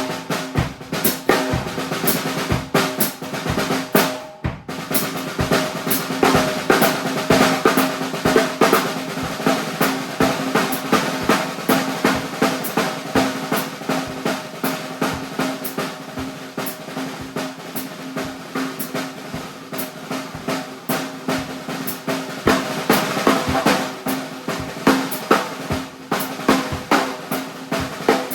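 Acoustic drum kit played in a busy improvised groove: dense snare strokes and rolls over bass drum, with a drum ringing on under the hits. The playing thins out briefly about four seconds in, then picks back up.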